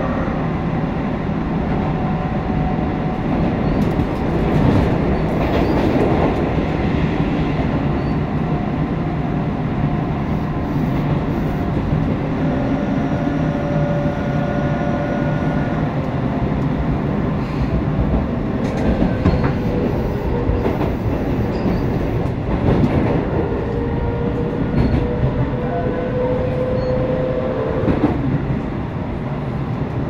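Tobu set 9152, a GTO-VVVF electric train, running through a subway tunnel and heard from inside the car: a steady rumble of wheels on rail, with faint steady tones coming and going.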